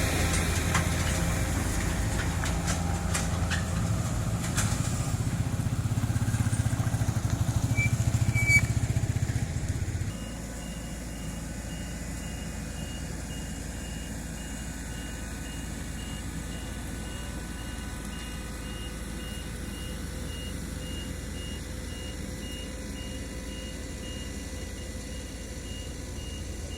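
Diesel engines of asphalt paving machinery running steadily, loud and low for about ten seconds, then dropping to a quieter drone. From about ten seconds in, a high reversing alarm beeps rapidly and evenly.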